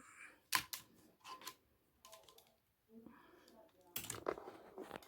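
Clicks and light knocks of ring light and tripod parts being handled and screwed together, in scattered bursts: a few sharp clicks about half a second in, more around a second and a half, and a busier cluster near four seconds.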